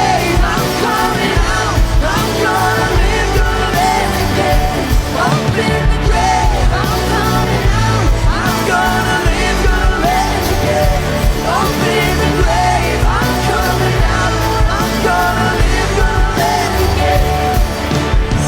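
Live church worship band playing a loud, driving rock-style song with full drums and bass, with some singing over the top.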